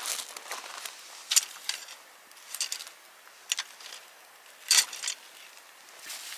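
Scattered sharp clinks and crunches as a steel grill stand is set over a wood campfire on gravel, with boots shifting on the stones; the loudest clink comes near the end.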